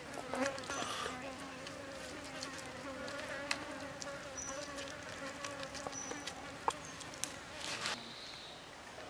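A flying insect buzzing close by: a steady hum whose pitch wavers slightly. It starts just after the beginning and stops about eight seconds in, with a few light clicks and taps over it.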